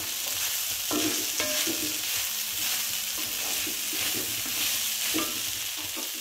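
Wooden spatula stirring and scraping damp flattened rice (aval) around a hot metal kadai in irregular strokes, over a steady sizzle of frying in oil.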